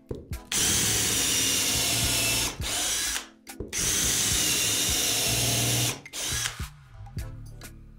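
Cordless drill/driver boring small holes into a wooden board. It runs steadily in two long spells of about three and two seconds, then once more briefly near the end.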